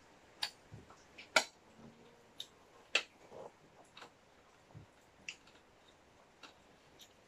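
A spoon clicking and scraping against a plate of rice and curry: about eight sharp, irregular clinks, the loudest about a second and a half in, with soft chewing sounds in between.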